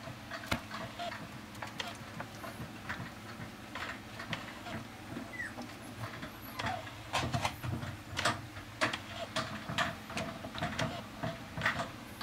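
Small puppy's claws clicking and tapping irregularly on a plastic grid tray, more often in the second half, over a steady low background hum.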